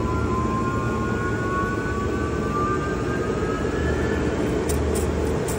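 200 hp North American three-phase electric motor spinning up under a rising supply voltage, a whine that climbs in pitch over a steady low hum and levels off about four seconds in as the motor nears full speed.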